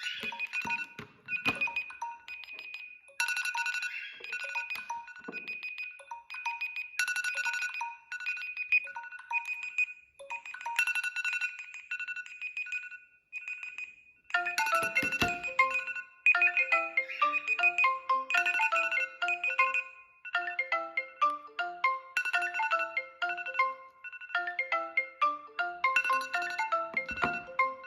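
Mobile phone ringtone melodies. One tone repeats a short high phrase about every four seconds, then about halfway through a different, busier melody of short notes takes over.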